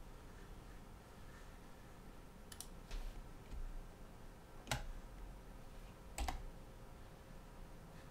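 Computer keyboard keys and mouse buttons clicking a few times, four or five separate clicks spaced a second or more apart, over a faint steady hum.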